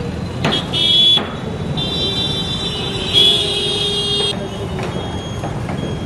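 Street traffic noise with vehicle horns honking: a short honk about a second in, then a longer honk of about two and a half seconds starting about two seconds in.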